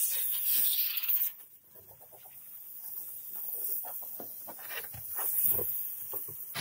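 Compressed-air blow gun hissing as it blows dust out of a car's trunk, cutting off suddenly about a second and a half in. Short bird calls follow.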